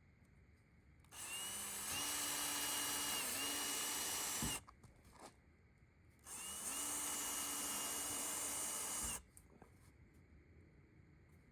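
Power drill running in two steady bursts of about three seconds each, spinning up at the start of each and stopping with a short knock, working in cedar.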